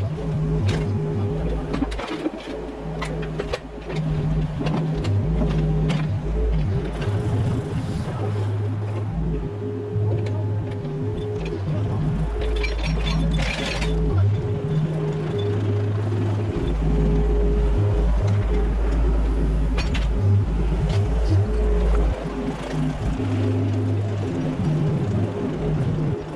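Mini excavator working, its engine and hydraulics running steadily, with repeated knocks and scrapes from the bucket working the ground, under background music with a heavy bass.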